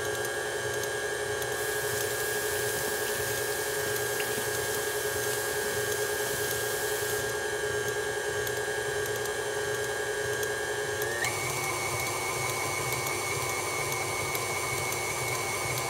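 Electric tilt-head stand mixer running steadily, beating thick cake batter in its steel bowl, with a steady motor whine. The whine steps up in pitch about eleven seconds in.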